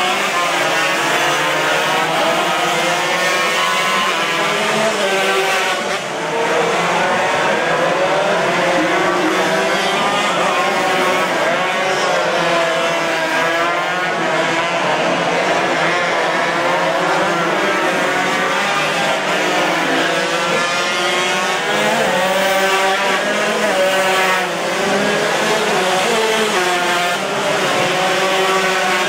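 Yamaha RX-King two-stroke race motorcycles, several at once, revving up and down through the gears as they lap the circuit, their engine notes rising and falling over one another.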